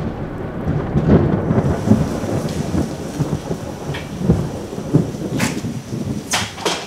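Rolling thunder over steady rain, rumbling in uneven swells, with a few sharp clacks near the end.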